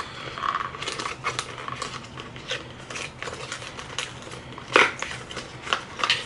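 Small cardboard product box being opened by hand: scattered crackles and clicks as the flaps and packaging are worked, with one louder snap about five seconds in.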